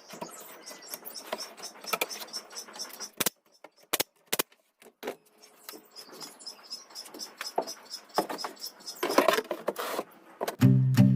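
Scattered sharp clicks and light knocks with short quiet gaps, typical of handling wood and tools while fitting cabinet parts. Music with plucked guitar comes in near the end.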